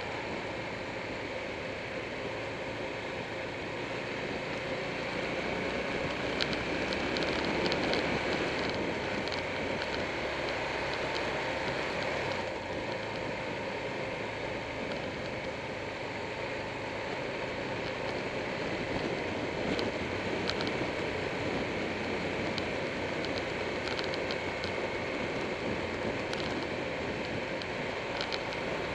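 Wind rushing over a motorcycle-mounted camera at riding speed, with the motorcycle's engine running steadily underneath. The noise swells a little about six to eight seconds in, and a few light clicks come through in places.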